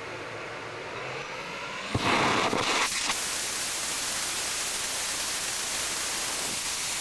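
A small solid-fuel rocket motor (ammonium perchlorate composite propellant), a 1/10-scale test motor static-fired nozzle-up, lights about two seconds in with a sudden loud start. It then burns steadily with an even, loud rushing hiss.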